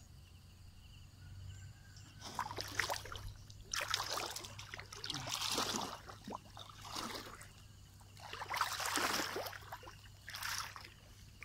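Legs wading through knee-deep pond water, sloshing and splashing in uneven bursts every second or two.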